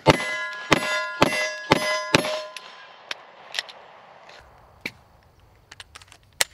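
Glock 43X 9mm pistol fired five times in quick succession, about two shots a second, each shot followed by the ringing of a struck steel target. A few light ticks follow after the shooting stops.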